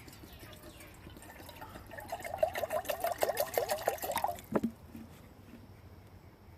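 Water being poured, gurgling in quick pulses for about two seconds, then a single sharp knock near the end of the pour.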